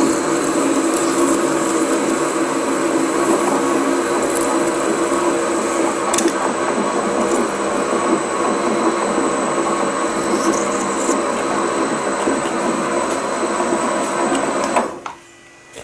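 Lathe running while a carbide parting blade cuts through tough steel: a steady machine noise with several constant tones. It cuts off suddenly about fifteen seconds in.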